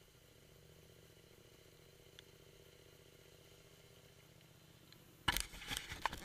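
Faint, steady hum of a motorcycle engine riding along a dirt road, then about five seconds in a sudden burst of loud knocks and rattles, several sharp strikes in quick succession.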